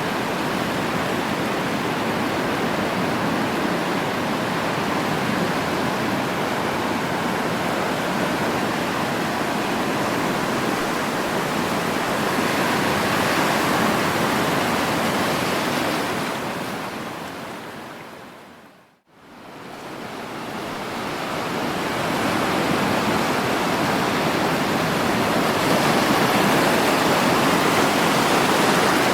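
Sea waves surging and washing on a shore in steady surf, with slow swells in loudness. About two-thirds of the way through, the sound fades down to silence and swells back up within a few seconds.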